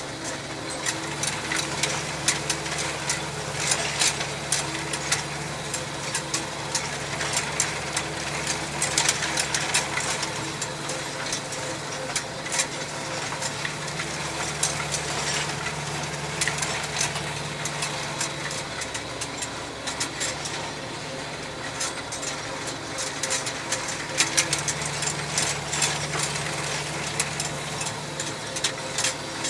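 Tractor engine running steadily while it drives a rotary grass tedder, with frequent clicks and rattles over the engine's hum.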